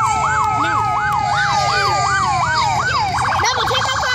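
Emergency vehicle sirens sounding together. One electronic siren yelps, rising and falling about three times a second, then switches a little after three seconds in to a much faster warble. Under it a second, steady siren tone slowly falls.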